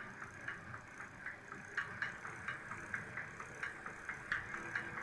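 Electric hub motor turning slowly on light throttle with a rhythmic knocking, about three clicks a second: a fault inside the motor-wheel, which the owner ties to running it in winter frost.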